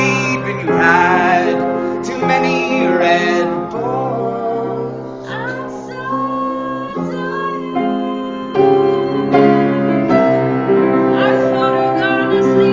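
Live song: a singer holding long notes over piano chords.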